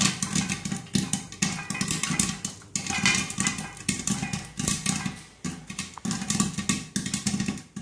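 Corn kernels popping in hot oil inside a closed pressure cooker: a quick, irregular run of pops, several a second. Background music plays underneath.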